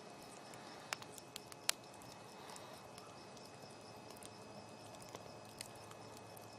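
Campfire crackling: a faint steady hiss of burning wood broken by sharp pops, a small cluster of them about a second in, the loudest just before two seconds, and two more a little after five seconds.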